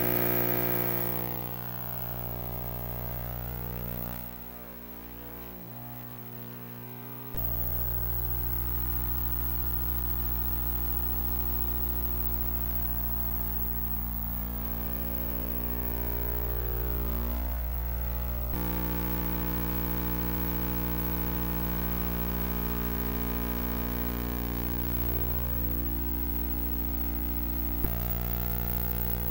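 Steady electrical hum with a buzzy stack of overtones and no game sound. Its level and tone shift abruptly a few times.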